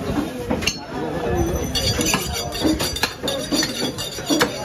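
Butchers' knives and cleavers striking beef on wooden chopping blocks: several sharp chops about a second apart, with metallic clinks ringing in the middle. Background voices chatter throughout.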